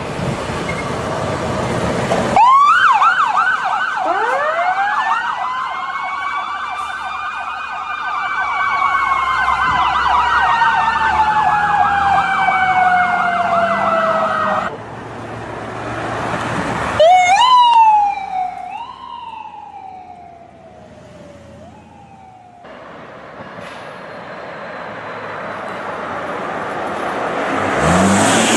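Ambulance sirens in several spliced recordings with street noise between them. In the first, a fast warbling yelp sounds together with a long wail that rises and then slowly falls, and it cuts off abruptly about halfway through. Later a shorter passage of up-and-down siren sweeps runs for about five seconds.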